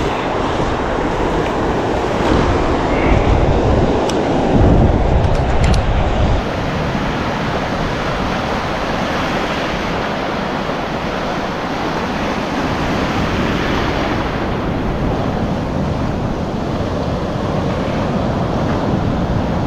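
Ocean surf washing and breaking in shallow water, a steady rushing noise, with wind buffeting the microphone as a heavy low rumble during roughly the first six seconds.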